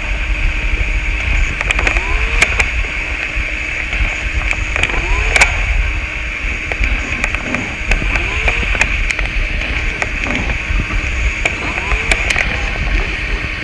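Experimental noise music: a dense wall of steady high hiss over a low rumble, scattered with sharp clicks and short swooping chirps about once a second.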